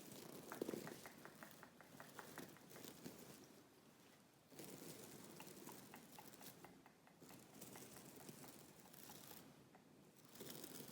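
Fingernails scratching on a pillow, close to the microphone: quick, even strokes in the first couple of seconds, then slower, softer rubbing and scratching of the fabric in stretches.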